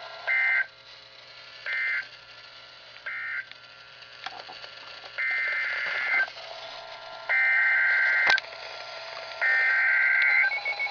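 Emergency Alert System digital data bursts over a weather radio broadcast. First come three short, evenly spaced screeching bursts: the end-of-message code closing one warning. After a pause come three longer bursts: the header code opening the next winter storm warning. A pulsing alert tone begins near the end.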